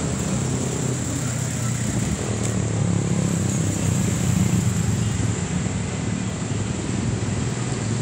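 Steady road traffic noise from cars and motorcycles running along the street.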